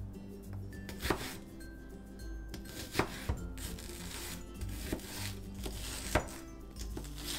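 Chef's knife slicing and chopping an onion on a cutting board: crisp cuts through the onion and about six sharp knocks of the blade on the board, irregularly spaced, over light background music.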